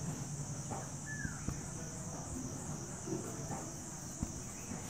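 Marker pen writing on a whiteboard: a few faint strokes and taps and one short falling squeak about a second in. Behind them runs a steady, high, evenly pulsing chirring of insects.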